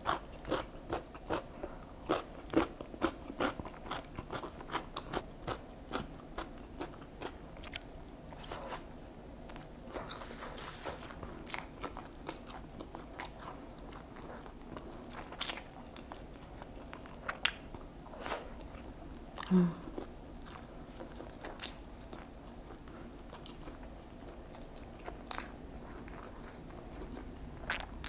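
Close-miked chewing of crispy boneless fried chicken and pickled radish cubes. Dense crunching for the first several seconds, then slower, sparser chewing with a brief low hum about two-thirds of the way through.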